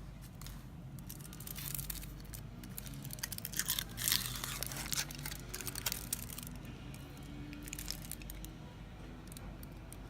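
Lotte Crunky chocolate bar wrapper being torn and crinkled by hand in scattered crackles, with the loudest tearing about four seconds in.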